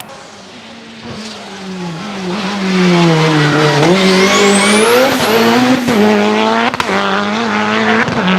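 Car engine under hard load, its note growing louder, with a high whistle from its forced induction climbing steeply in pitch about four seconds in. A few short sharp clicks come near the end.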